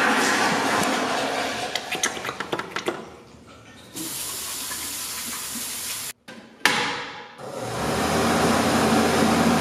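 Restroom water: a toilet flushes with a sudden loud rush that fades over about three seconds. A tap then runs steadily for about two seconds and cuts off abruptly, and near the end another rush of water noise swells up with a low rumble.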